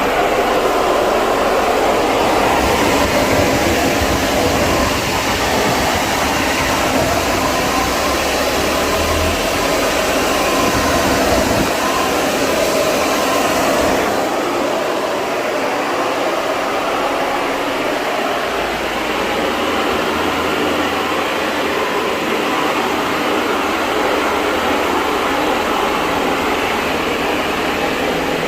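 Air-conditioner cleaning equipment running steadily with a loud, even rushing noise; the sound shifts slightly about halfway through.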